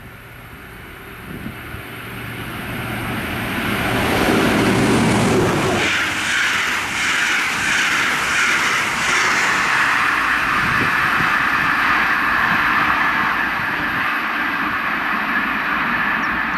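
Diesel-hauled push-pull regional train approaching and running past close by. The noise builds for about four seconds, with heavy low running sound that drops away sharply near six seconds in. Then comes the steady rolling noise of the coaches' wheels on the rails.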